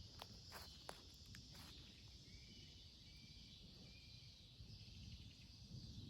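Quiet woodland ambience: a steady high insect drone with faint short chirps repeating, and a few soft crackles in the leaf litter in the first second and a half.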